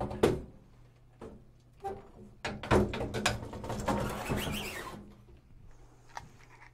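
A large circuit board on its metal front panel is slid into a heavy steel equipment case like a drawer. It gives a couple of sharp knocks at the start, a few clicks, then a scraping metal rattle for a few seconds as it slides home.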